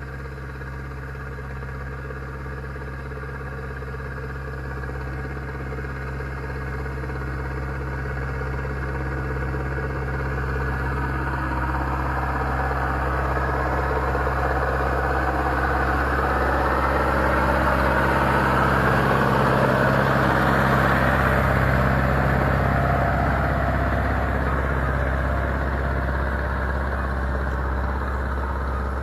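Zetor 7745 Turbo tractor's turbo diesel engine running steadily while pulling a three-furrow plough. It grows louder as the tractor approaches, is loudest about two-thirds of the way through, then eases off a little.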